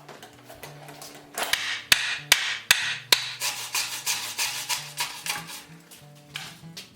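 Hand woodworking on a wooden frame: four sharp strikes about 0.4 s apart, within a run of rhythmic scraping strokes of a hand tool on wood, as a mortise-and-tenon joint is cut and cleaned up.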